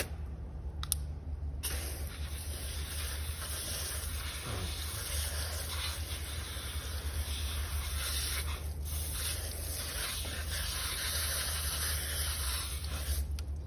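Water spraying from a garden hose nozzle onto a dog's coat and a wooden deck: a steady hiss that starts about two seconds in and stops near the end.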